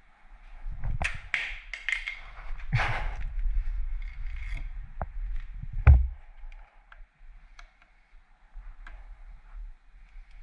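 Hand tools and small metal parts being handled during work on a motorcycle's brake and clutch levers: a run of scrapes and rattles, a few sharp clicks, and one loud knock about six seconds in, then only scattered light ticks.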